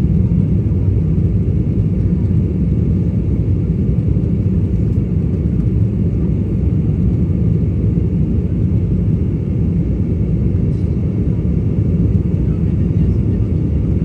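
Steady low cabin drone of an Embraer 190 airliner in flight shortly after takeoff: the noise of its twin turbofan engines and the airflow over the fuselage, heard from a window seat, with a few faint steady tones above the rumble.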